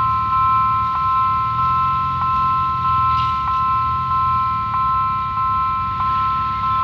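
Level-crossing warning bell ringing a steady two-tone ding, about one and a half strikes a second, over a low rumble.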